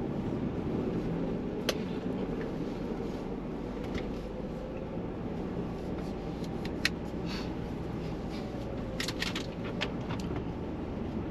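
Ford Bronco driving slowly in four-wheel-drive low over a snowy trail: a steady engine and drivetrain rumble with a few sharp clicks and clinks scattered through, the loudest cluster near the end.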